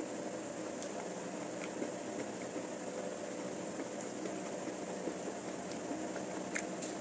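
Steady machine hum, like a running fan, with a few faint clicks and smacks of eating.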